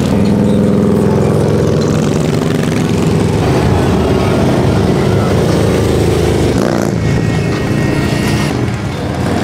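Motorcycle engine running steadily while riding, with wind and road noise.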